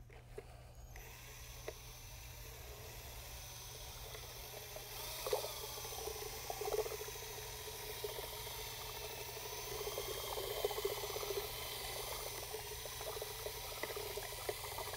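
Cordless drill with a paddle mixer starting about a second in and running steadily, churning liquid MMA resin in a plastic bucket: a motor whine over sloshing and swirling liquid. This is the hardener (peroxide catalyst) being mixed into the pigmented resin.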